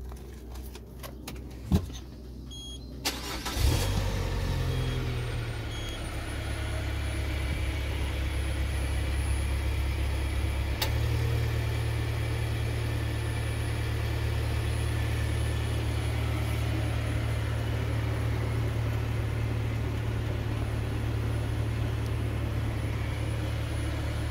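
Peugeot 307's 2.0-litre four-cylinder engine cranked and started about three and a half seconds in, after a few clicks, then idling steadily. This is the first run after an oil change, to circulate the fresh oil.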